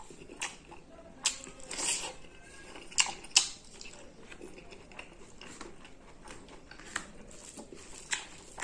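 A person biting and chewing raw cucumber slices close to the microphone: a string of short, sharp, crisp crunches, the two loudest about three seconds in, with softer chewing between.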